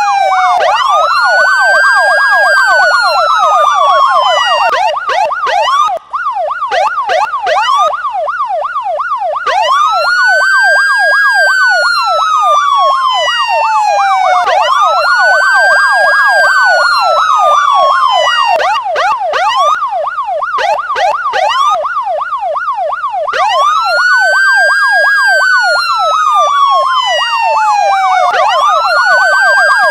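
Police car electronic siren with a slow wail that rises quickly and falls away over several seconds, again and again, layered with a rapid yelp. The sound cuts out for an instant about six seconds in.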